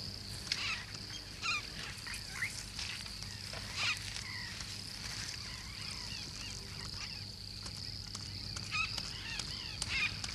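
Jungle ambience: insects droning steadily at a high pitch, with many short bird chirps and calls scattered through it.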